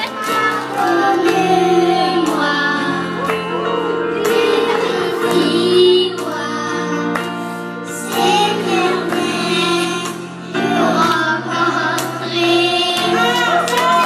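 A group of boys singing a song together into microphones, accompanied by an electronic keyboard holding steady bass notes.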